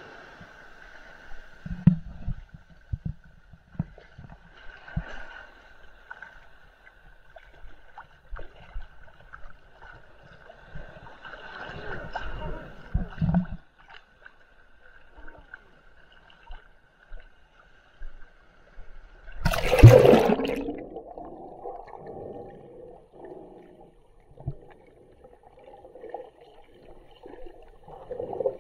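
Shallow sea water sloshing with knocks and handling thumps, over a faint steady high whine. About two-thirds of the way through comes one loud splash as the camera plunges underwater, after which the sound turns muffled, with underwater gurgling and bubbling.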